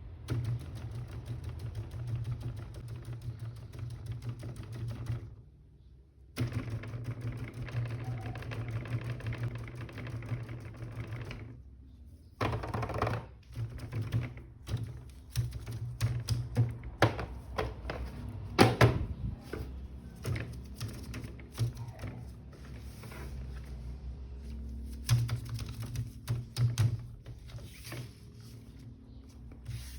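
Rapid clicking, tapping and clattering of handled plastic toys and packaging, with a low hum in some stretches.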